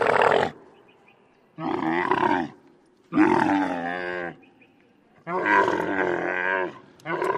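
A run of drawn-out, pitched, camel-like calls, presented as the voice of Camelops, the extinct Ice Age camel. Each call lasts about a second with short pauses between. One call ends just after the start and four more begin, the last cut off at the end.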